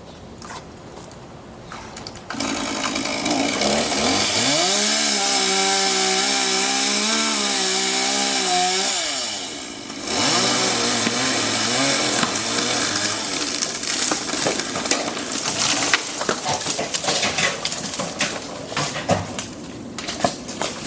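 Two-stroke chainsaw starting up about two seconds in and revving to full throttle, held high for several seconds. Its revs drop briefly near the middle. It then runs on lower and unevenly, with many short sharp cracks over it.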